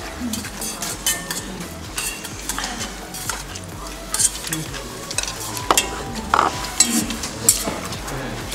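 Utensils stirring and mixing naengmyeon noodles with sauce in a stainless steel bowl: irregular small clicks and scrapes against the metal over a wet, hissing stir, with a couple of brief metallic rings about six seconds in.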